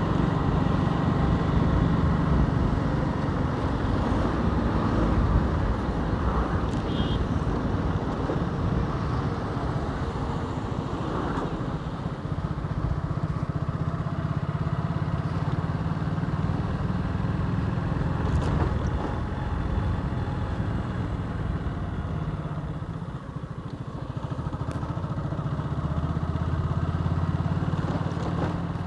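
Motorcycle engine running steadily under way, heard from the rider's seat, with road noise. The sound eases briefly about three quarters of the way in.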